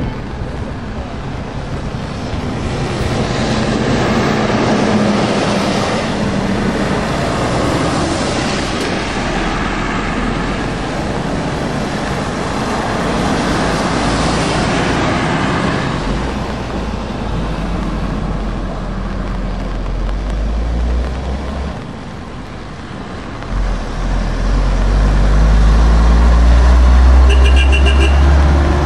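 Heavy trucks passing one after another on a wet road, tyres hissing through the spray under the running of their diesel engines. Near the end a vintage Seddon tractor unit passes close, its engine loud and low, with a brief high squeal.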